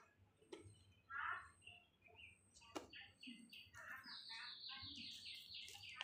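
Faint birds chirping, with a quick run of repeated high chirps starting about two-thirds of the way through. A couple of faint clicks.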